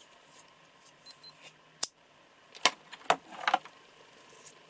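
Small plastic and metal torch accessories being handled: a sharp click, then two more clicks and a short light rattle.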